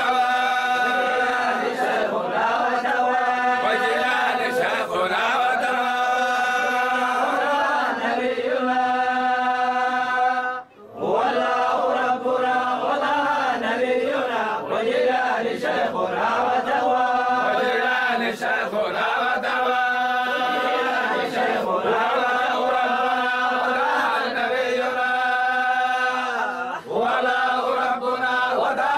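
A group of men chanting a Sufi dhikr of the Zayla'iyya order in unison, in long held notes. The chant breaks off for a moment about eleven seconds in, then resumes.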